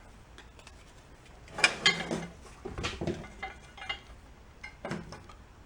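Small loose metal engine parts and bolts clinking and clattering as they are picked through by hand, in a few separate bursts, the busiest about one and a half to two seconds in.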